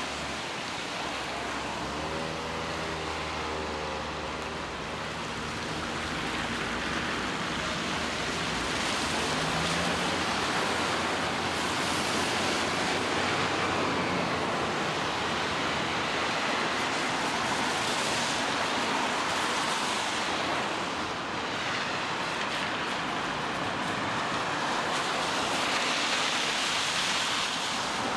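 Road traffic in the rain: cars passing with the hiss of tyres on wet asphalt over steady rainfall, and an engine's hum in the first few seconds.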